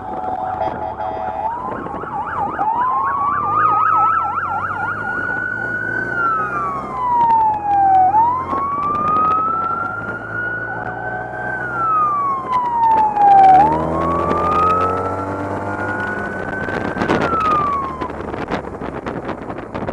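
Police motorcycle sirens wailing, slowly rising and falling three times, with a fast yelp overlapping for a couple of seconds near the start and a short steady horn-like tone in the first moments, over motorcycle engines running.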